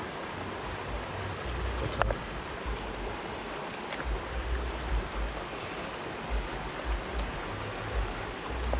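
Steady rush of a flowing river, with a couple of light clicks about two seconds apart from a knife trimming a raw chicken on a wooden cutting board.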